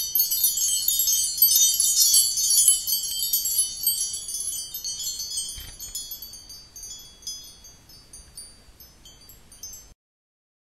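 Chimes tinkling: many short, high ringing notes overlapping in a dense shimmer at first, then thinning out and fading away over several seconds.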